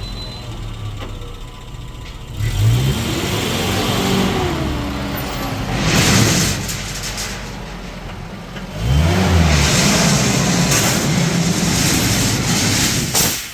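A motor vehicle's engine running and revving. Its pitch climbs and falls about two and a half seconds in, and again, louder, about nine seconds in.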